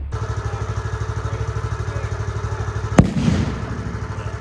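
An engine idling with a steady, fast pulse. About three seconds in there is a single sharp crack with a short tail.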